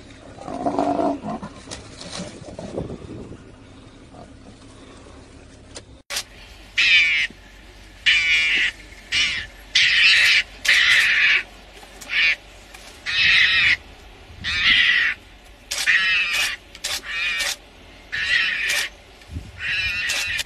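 A lion growling in a scuffle for the first few seconds. Then a mongoose squares up to lions and gives over a dozen short, harsh, high-pitched screeching calls, each under a second, with brief pauses between them.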